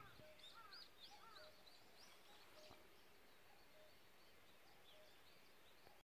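Faint dawn birdsong: many short, high chirps from several birds, with a few lower chirps in the first second and a half, over faint outdoor hiss.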